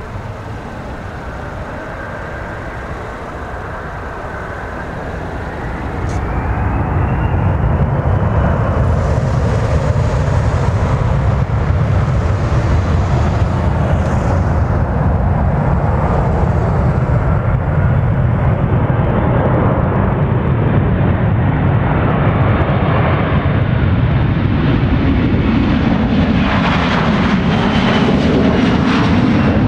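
Boeing 737-400's CFM56 turbofan engines spooling up for takeoff: a whine rises and the sound grows louder about five seconds in. Then a loud, steady jet roar with a deep rumble as the airliner runs at takeoff thrust.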